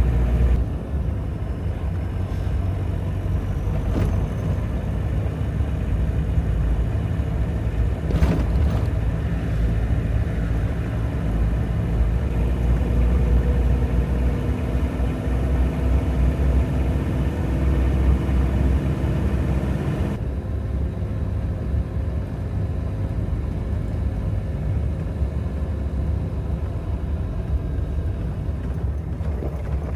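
Toyota Hilux camper driving along a rough mountain road: a steady low rumble of engine and road noise, with a couple of short knocks from bumps about four and eight seconds in.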